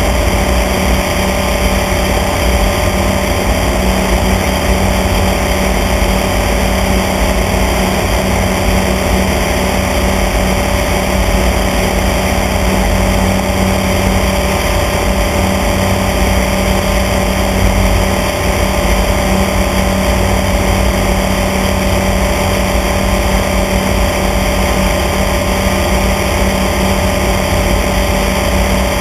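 Small airplane's engine and propeller droning steadily in level cruise flight, one constant pitch with no change in power.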